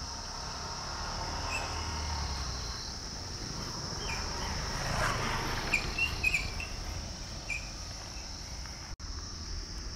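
Steady high-pitched drone of insects in hillside forest, with a few short bird chirps scattered through the middle; the sound cuts out for an instant about nine seconds in.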